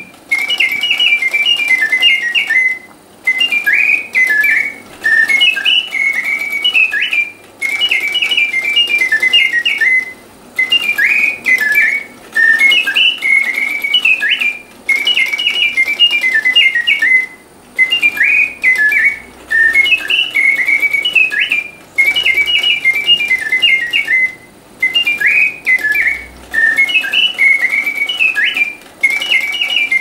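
Bontems singing bird cage automaton, its clockwork bellows and piston whistle singing a warbling mechanical birdsong: quick high whistled chirps and trills in short phrases, each broken off by a brief pause every two to three seconds.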